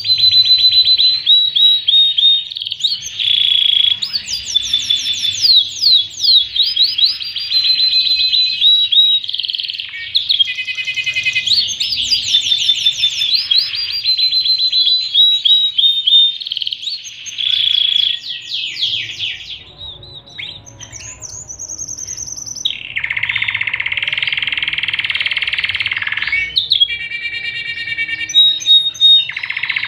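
Pied domestic canary singing a long, varied song of rapid trills and rolling phrases, with a brief lull about two-thirds through followed by a dense buzzing roll.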